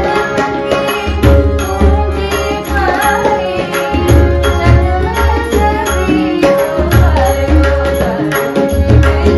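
Hindustani devotional bhajan played live: a woman's voice singing over harmonium, with busy tabla and pakhawaj drumming whose deep strokes are the loudest part, and small hand cymbals keeping the beat.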